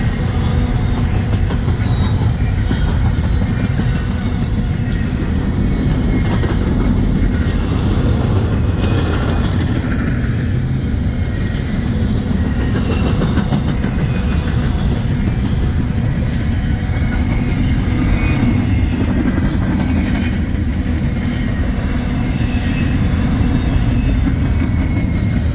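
Union Pacific train rolling past, a steady loud rumble of wheels on rail with scattered short clicks and brief high wheel squeals.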